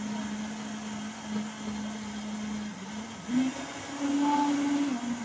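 Countertop blender running, pureeing fresh corn kernels with water, powdered milk and sugar. Its motor hum is steady, then rises in pitch and grows louder a little after three seconds in.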